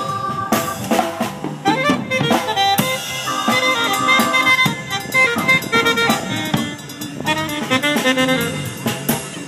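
Instrumental music with a drum kit playing a beat under held melodic lines.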